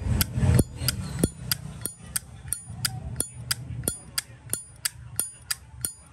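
Solid brass Zippo lighter's hinged lid being clicked open and shut over and over, sharp metallic clicks with a bright ring, about three a second.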